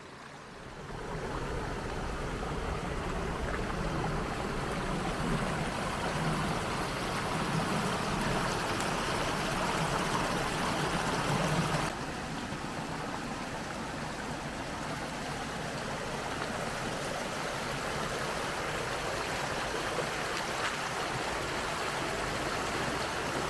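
Small woodland brook cascading over mossy rocks: a steady rush and splash of running water. About halfway through, the sound changes abruptly to a slightly quieter, steady rush of the same stream.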